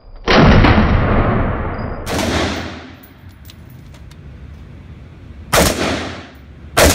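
Heckler & Koch HK93 semi-automatic rifle in .223 Remington firing four single shots, unevenly spaced, the first two about two seconds apart and the last two close together near the end. Each loud crack is followed by a long echoing decay from the enclosed range.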